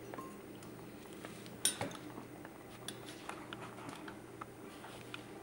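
Light clinks and small knocks of tableware and a glass pickle jar being handled on a table, with one sharper knock about one and a half seconds in, over a faint steady hum.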